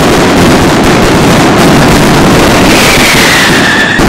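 Huge string of fuse-linked thunder firecrackers (truenos de mecha) going off in an unbroken, very loud barrage of bangs too close together to separate. About three seconds in, a firework whistle joins and falls in pitch for about a second.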